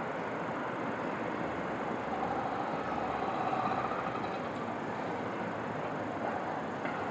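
Steady distant city traffic noise. A faint whine swells for a couple of seconds near the middle and then fades.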